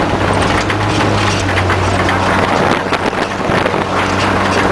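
Off-road vehicle driving a gravel dirt track, heard from inside the cab: a steady engine hum under loud, rough road and tyre noise.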